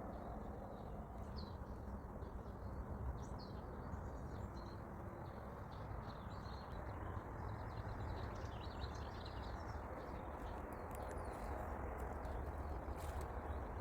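Small birds chirping in short scattered calls over a steady low background noise.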